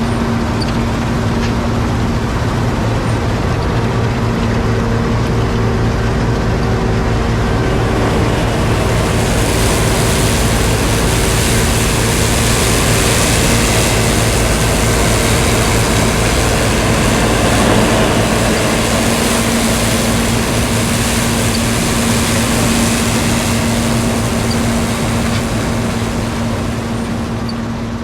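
John Deere 7720 Turbo combine running steadily while harvesting wheat: a constant engine drone with steady hum tones under a dense mechanical rush. A brighter, hissing layer joins about nine seconds in, and the sound fades out at the end.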